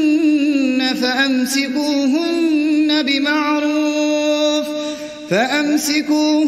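A man reciting the Quran in the melodic chanted style of tajweed, drawing out the end of the phrase on long, held, ornamented notes. About five seconds in the voice breaks off briefly, then comes back in with a rising glide.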